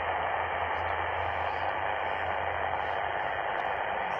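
Shortwave receiver in upper-sideband mode tuned to 2056 kHz, giving only steady hiss and static with no readable signal, over a low hum.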